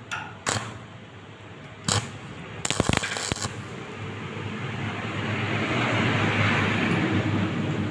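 A few sharp taps, then a stick-welding arc struck about three seconds in that settles into a steady frying crackle, growing louder as the weld runs.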